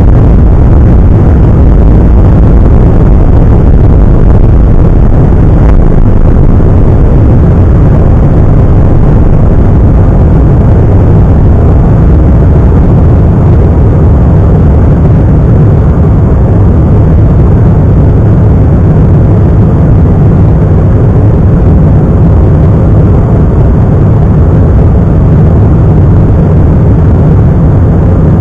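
Embraer E-Jet's twin turbofan engines at takeoff power, heard from inside the cabin over the wing: a loud, steady rumble as the airliner lifts off and climbs.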